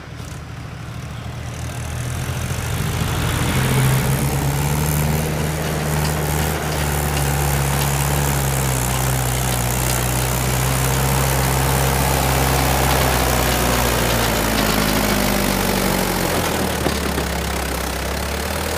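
Mahindra 575 DI tractor's four-cylinder diesel engine running as it pulls a trolley loaded with soil. It grows louder over the first four seconds as the tractor approaches, then runs steadily close by.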